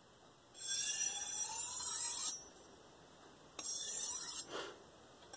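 KitchenAid santoku's steel edge drawn along an Idahone ceramic honing rod with very light pressure, setting a micro bevel: two scraping strokes. The first starts about half a second in and lasts nearly two seconds, with a faint rising tone under it; the second, shorter one comes about three and a half seconds in.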